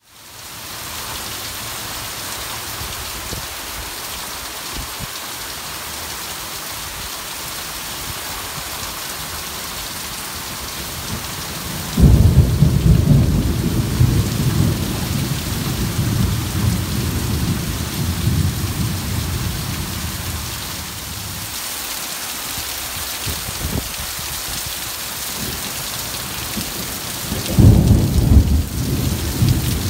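Heavy rain pouring down with a steady hiss. About twelve seconds in a sudden clap of thunder rolls on for several seconds, and another rumble of thunder comes near the end.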